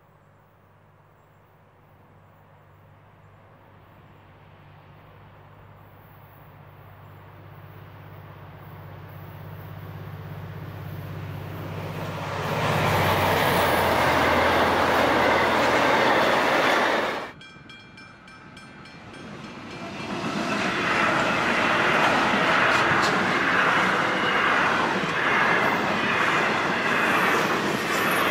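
N class diesel locomotive approaching, its engine's steady low drone growing steadily louder, then its passenger carriages passing close with loud wheel and rail noise. This cuts off suddenly, and after a short lull a container freight train's wagons roll past loudly with clattering wheels.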